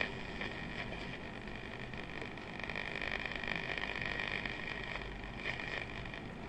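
Philips radio giving steady medium-wave static hiss as its tuning knob is turned off a station, between broadcasts.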